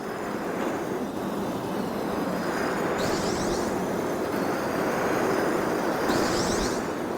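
Marbles rolling down a marble-run track in a steady rumble. Brief higher clattering comes about three seconds in and again about six seconds in.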